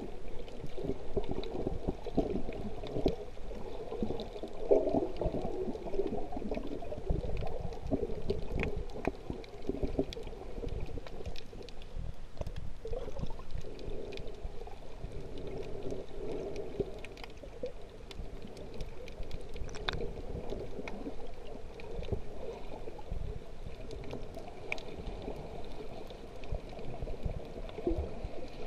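Underwater ambience picked up by a camera held below the surface while snorkelling: a muffled, churning water noise with low rumble and scattered sharp clicks.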